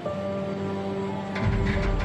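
Background music from a cartoon soundtrack: held, eerie tones, with a deeper, fuller swell coming in about one and a half seconds in.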